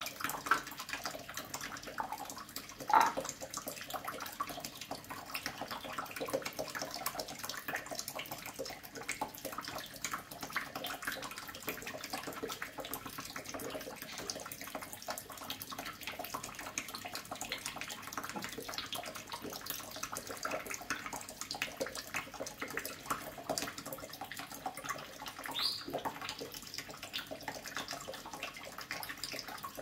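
A thin stream of tap water running into a kitchen sink, splashing irregularly as a cockatoo pokes its beak into the flow. There is one louder sudden sound about three seconds in and a short rising squeak near the end.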